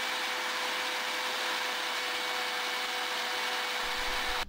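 Electric blender with a small grinding jar running at a steady speed: a constant motor whine over a rushing noise, as it grinds garlic, pepper, coriander roots and salt into a marinade paste.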